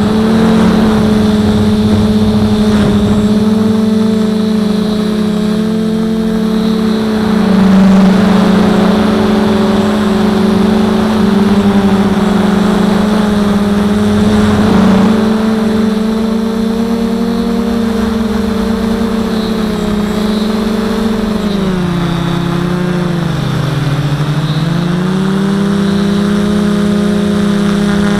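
Quadcopter's motors and propellers buzzing steadily in flight. The pitch sinks for a couple of seconds about three-quarters of the way through, then climbs back.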